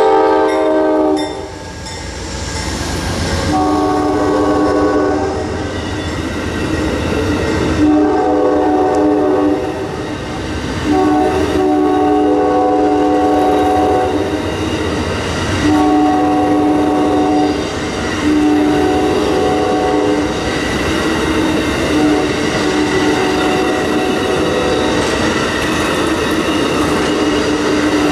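Amtrak passenger train's locomotive horn sounding a string of long blasts, each about two seconds with short gaps between, growing fainter after about 20 seconds as the locomotive moves off. Under the horn, bi-level Superliner passenger cars roll steadily past with wheel clatter on the rails.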